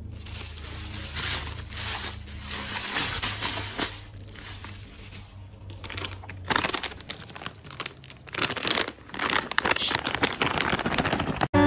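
A plastic bag of dog treats being crinkled and rustled by hand in irregular bursts.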